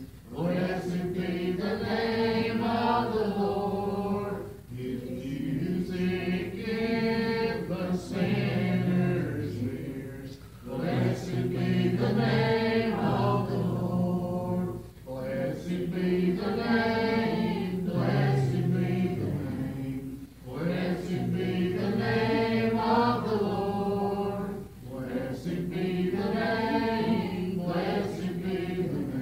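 Slow singing in long held phrases of about four seconds each, with short breaks between them and no words made out.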